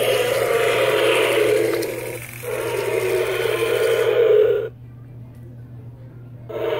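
Electronic dinosaur roar from a toy's small speaker: a rough, sustained growl in two long stretches broken by a short gap about two seconds in. It cuts off sharply near five seconds, leaving a low steady hum, and starts again near the end.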